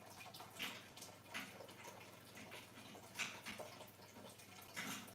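Faint, scattered clicks and rustles, a few short ones a second or two apart, from handling parts.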